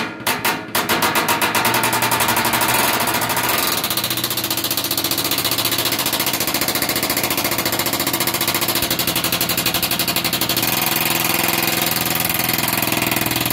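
Impact wrench hammering on a rust-seized 12 mm exhaust heat shield bolt. It gives a few short bursts, then runs on in a continuous rapid hammering for more than ten seconds.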